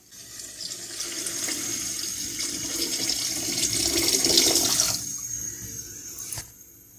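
Water poured in a steady stream into a bubbling pan of mutton korma, the pouring growing louder until it stops about five seconds in, followed by a fainter hiss that fades a second or so later.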